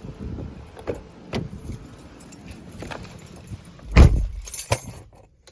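Keys jangling with a few clicks and rattles, then a loud heavy thump about four seconds in, followed by a couple more clicks.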